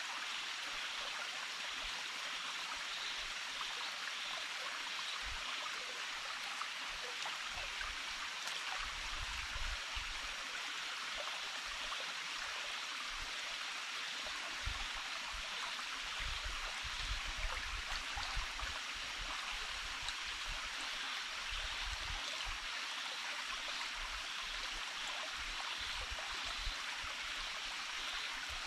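Small forest stream flowing steadily, with a few low bumps about a third of the way in and again a little past the middle.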